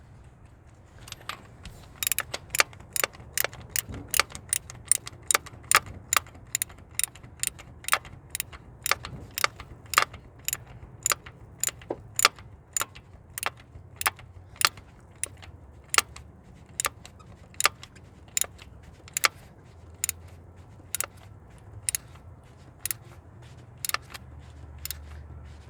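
Socket ratchet clicking steadily as a 3/4 inch deep socket tightens a new coolant temperature sensor into the engine, about two clicks a second, slowing to about one a second in the second half.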